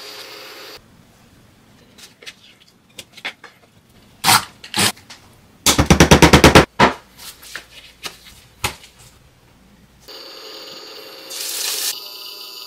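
Pork and kimchi sizzling in a frying pan for the first second. Then a stick blender in a small glass jar: scattered knocks and short whirs, and about six seconds in a burst of about ten quick pulses, the loudest sound. A steady hiss comes back near the end.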